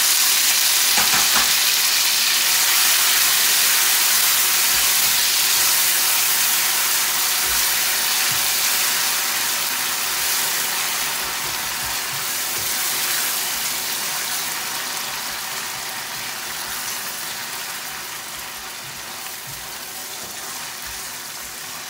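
Chopped onion sizzling in hot vegetable oil and garlic in a stainless steel pan as it is stirred with a silicone spatula. The sizzle is loudest just after the onion goes in and slowly dies down.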